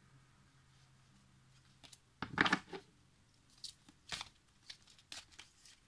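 Crisp rustling and crinkling handling noise: a loud rustling burst a little over two seconds in, followed by several short crisp rustles and clicks.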